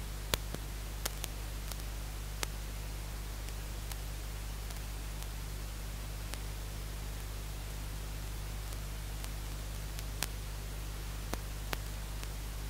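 Steady static hiss over a low electrical hum, with scattered sharp clicks now and then.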